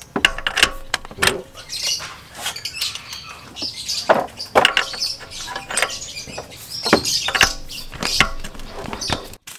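Irregular sharp metallic clinks and knocks of a socket and extension bar being handled and fitted onto the engine-mount nuts, with the sound cutting off abruptly near the end.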